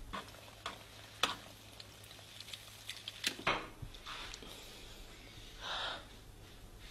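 Egg frying in a pan on a gas burner: a faint sizzle with a few sharp clicks of a spatula against the pan, and a short louder hiss a little before the end.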